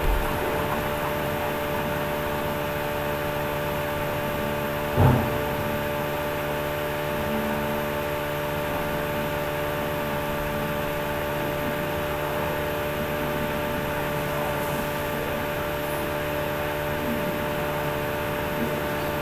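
Steady background hum with a hiss, made up of several steady tones, and one brief thump about five seconds in.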